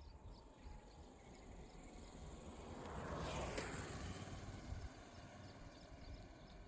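Faint rural outdoor ambience with rapid high chirping, as of insects, and a vehicle passing by: a whoosh that swells to a peak a little over three seconds in, with a sharp click at its loudest, then fades away.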